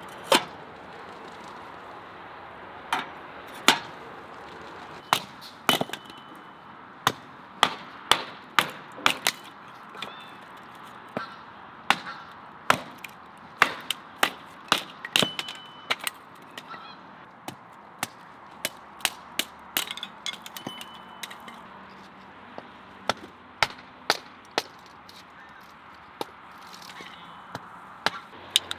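Hatchet splitting dry kindling sticks on concrete: a long series of sharp cracks and knocks, about one or two a second, with poultry calling in the background.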